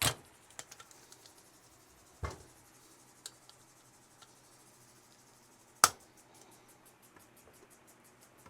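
Hand tools being handled at a cylinder head: a few sharp clicks and knocks, the loudest at the start, about two seconds in and near six seconds, with smaller ticks between, over a faint fast high ticking.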